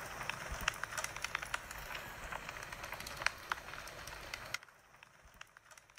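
Campfire of dry dead brush and sticks crackling, with many sharp snaps scattered through it. The sound drops away to near silence a little over four seconds in.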